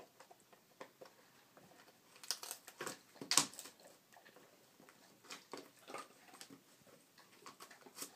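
Basset hound gnawing on a chew held between its paws: irregular crunching and clicking of teeth on the chew, with a cluster of harder crunches around the middle, the loudest about three and a half seconds in.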